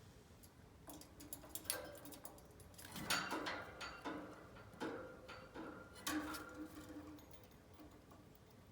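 Budgerigar making a run of sharp clicks and short chirps for about six seconds, loudest around three seconds and again around six seconds in.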